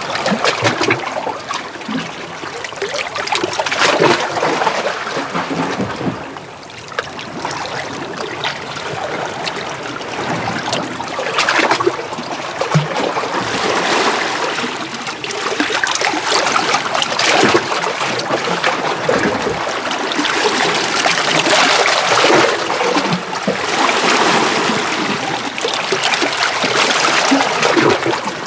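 Small sea waves washing in and out among shore rocks, with water trickling and splashing between the stones. The sound swells and eases every few seconds.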